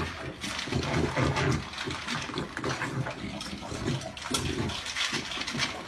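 A puppy eating dry kibble from a steel bowl: wet chomping and crunching in a quick, uneven rhythm, with kibble clicking against the metal.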